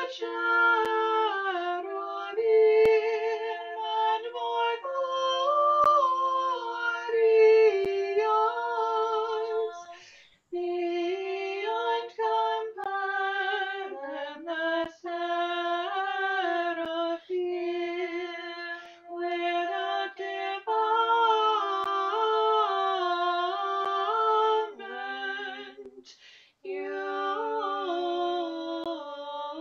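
Women singing an Orthodox liturgical hymn unaccompanied, in two parts: a lower voice holds a steady note while an upper voice moves above it. The singing breaks briefly twice, about a third of the way in and near the end.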